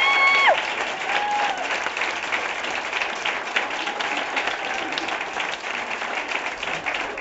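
Audience clapping steadily, with a short high whoop right at the start and another brief one about a second in.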